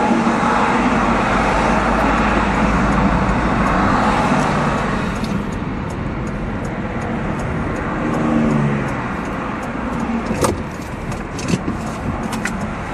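Road and engine noise of a moving van, heard inside the cabin, easing off after about five seconds as the van slows. A few sharp clicks come near the end.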